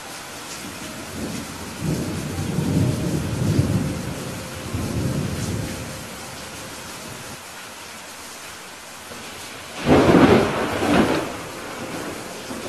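Steady rain with thunder: a low rolling rumble from about two to six seconds in, then a sharper, brighter thunderclap about ten seconds in that fades over a second or so.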